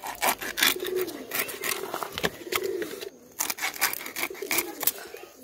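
A blade chopping and scraping through raw foli (bronze featherback) fish on a wooden block, cutting it into pieces: a quick, irregular run of sharp cutting clicks. A dove coos in the background, twice.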